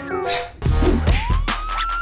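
Background music for a commercial: a few short held notes, then a driving beat of drum hits. About a second in, a siren-like tone rises and holds.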